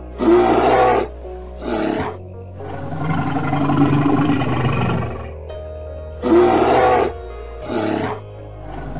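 Bear roars: a long roar followed by a shorter one, the same pair repeated about six seconds later, over background music.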